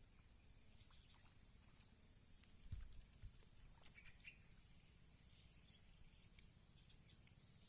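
Steady high-pitched buzz of insects, with a short chirp repeating every second or two and a couple of faint knocks a little before the middle.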